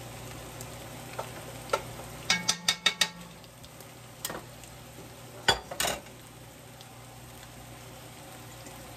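Metal spatula scraping and knocking against an enameled Dutch oven while ground turkey is stirred, with a steady sizzle of the meat frying underneath. A quick run of clicks comes a little over two seconds in and a few louder knocks come between five and six seconds, after which only the sizzle is left.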